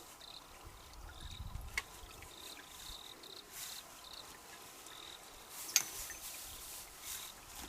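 Faint trickling and splashing water at a mountain pool, with two sharp clicks and short, repeated high blips.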